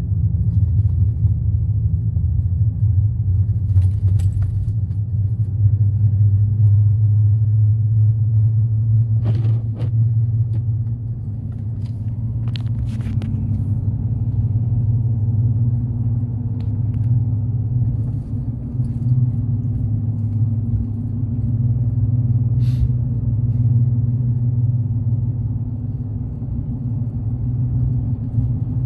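Steady low rumble of a vehicle's tyres and engine while driving, heard from inside the cabin, with a few faint clicks now and then.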